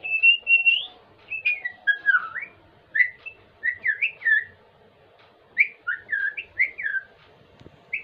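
Common myna calling: a run of short whistled notes that glide up and down, in four bunches with a pause about halfway through.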